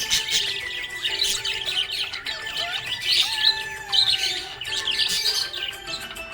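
Small pet parrots chirping and squawking in quick, dense, overlapping calls, over background music with held notes.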